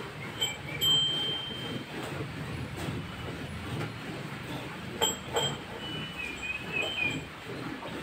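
Cow being milked by hand: thin streams of milk squirt into a steel bucket already full of froth, in uneven strokes. Short high-pitched chirps sound over it.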